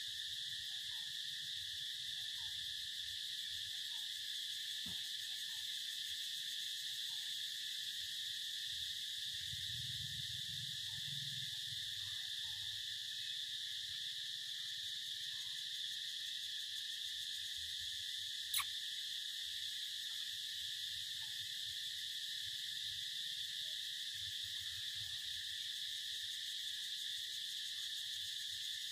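Steady, unbroken insect chorus: a high-pitched drone sitting at two pitches. One sharp click about two-thirds of the way in.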